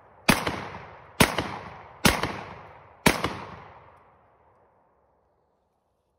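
Four gunshots about a second apart, each one trailing off over about a second.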